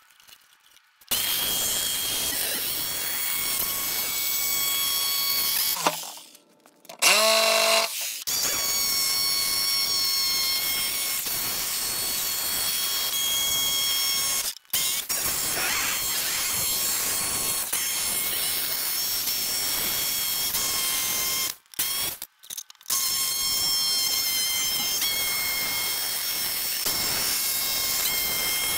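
Corded jigsaw cutting a curve in plywood sheet: a steady loud buzz with a whine, stopping briefly a few times and starting up again.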